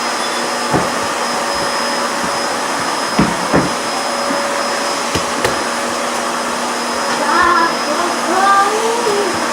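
Steady whooshing motor noise with a faint constant tone in it, broken by a few soft low thumps in the first half. Near the end a child's voice rises and falls briefly.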